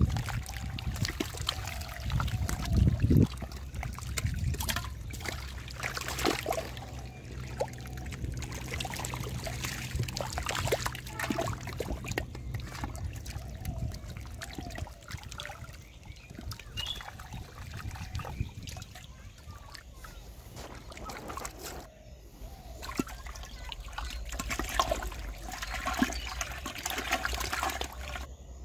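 Catfish thrashing in shallow muddy water, making irregular splashes and slaps, with water trickling.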